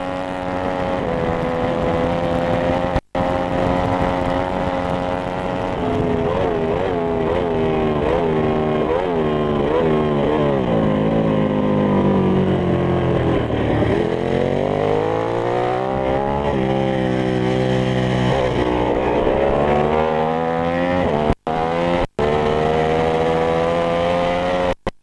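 Ducati 995 racing motorcycle's V-twin engine heard on board at racing speed. It holds high revs at first, then its pitch falls steeply as the rider shifts down. It climbs again in a series of rising runs broken by gear changes. The sound cuts out for a split second a few times.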